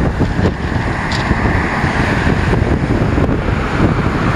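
Strong wind buffeting the microphone in gusts, over the hiss of surf breaking on a shingle beach.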